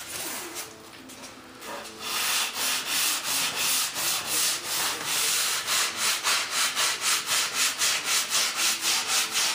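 Hand sanding the back edge of a model jet wing, with steady back-and-forth strokes about three a second that start about two seconds in, to sand out a bow and get the edge straight.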